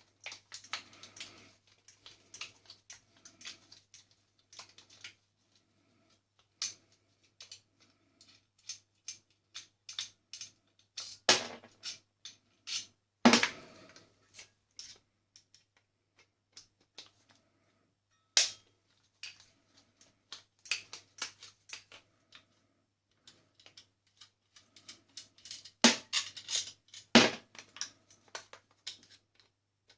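Irregular clicking, tapping and metal clatter of hand tools and loose parts as a coffee machine is taken apart with Allen key bits, with a few sharper knocks scattered through.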